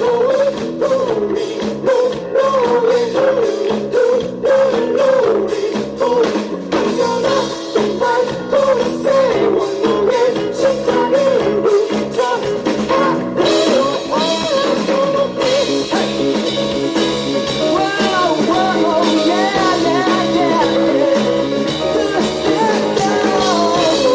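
A live rock band playing an instrumental passage: drums keeping a steady beat under a wavering lead melody.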